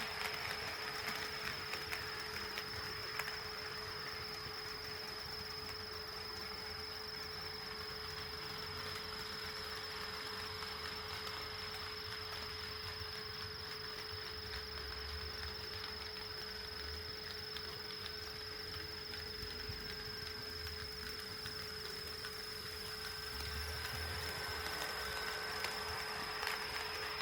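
HO-scale model train rolling along the track, its rolling noise louder at the start and again near the end, over a steady high whine and a lower steady hum.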